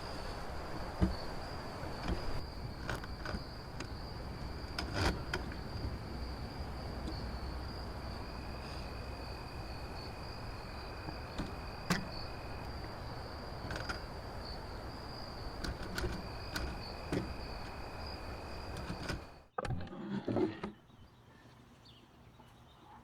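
Outdoor ambience with insects trilling steadily in a high, even tone, a second lower trill coming and going, and scattered sharp clicks and knocks. It cuts off suddenly near the end to a much quieter background hiss.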